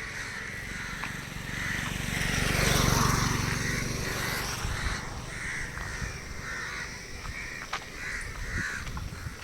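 Crows cawing over and over. A rushing noise swells and fades about two to four seconds in.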